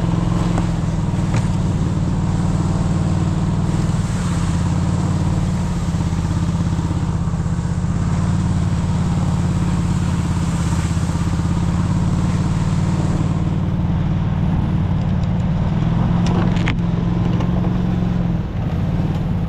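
Snowmobile engine running steadily while travelling over snow, holding an even pitch, with a brief dip in level near the end.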